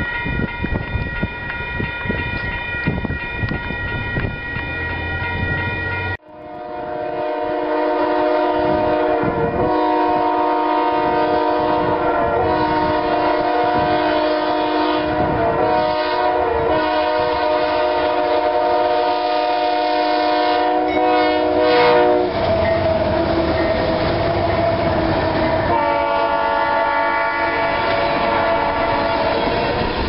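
Freight cars rolling past with steady clicking from the wheels. After a sudden cut, a freight locomotive's air horn sounds a chord for about fifteen seconds over the train's rumble, then, after a gap of a few seconds, sounds again near the end.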